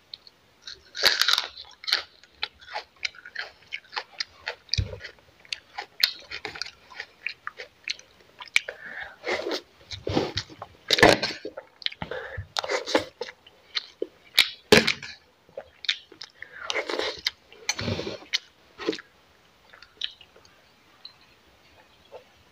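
A person chewing mouthfuls of fried rice close to the microphone, with crunching and mouth noises in many short, irregular bursts that die down about twenty seconds in.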